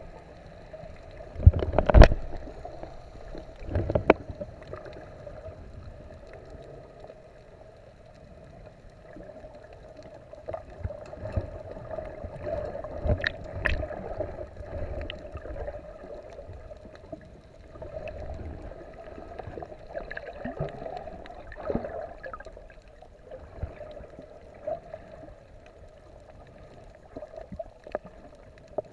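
Muffled underwater sound from a camera in a waterproof housing while snorkelling: a steady hum under the water noise, with heavy thumps about two seconds in and again at four seconds, and scattered smaller knocks and clicks from handling the housing.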